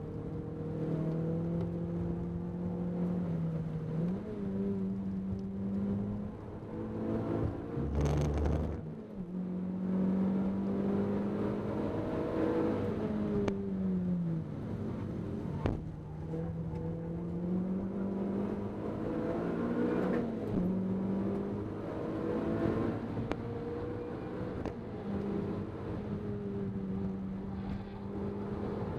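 Renault Clio 200 Cup's 2.0-litre four-cylinder engine working hard at speed, heard from inside the cabin, its note falling and climbing again with each lift and gear change, over tyre and road noise. A single heavy thump about eight seconds in.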